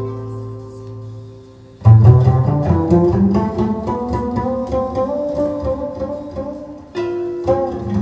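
Instrumental string music played through DALI hi-fi loudspeakers: a few quieter held notes, then about two seconds in a sudden loud passage of quick, busy notes in the low strings, with a short dip and a fresh entry near the end.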